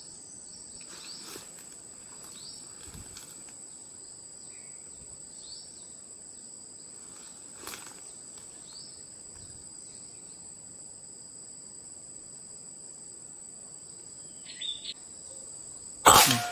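Insects droning with a steady high-pitched whine. Near the end comes one sharp shot from a PCP air rifle.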